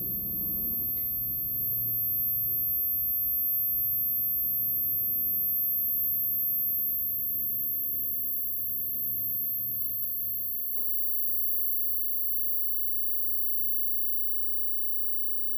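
Piezo beeper of a Commodore 8032 computer giving off an unwanted steady, very high-pitched whine, with fainter lower tones and a low electrical hum underneath.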